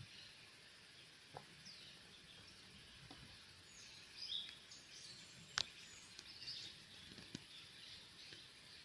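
Faint outdoor ambience with a steady hiss and small birds chirping in short bursts, busiest in the middle. A few sharp clicks sound through it, the loudest about halfway.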